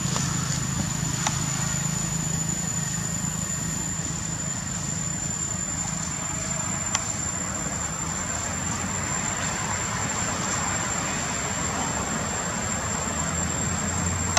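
Steady outdoor forest ambience: an even hiss with a thin, unbroken high-pitched whine over a low hum, and two faint clicks.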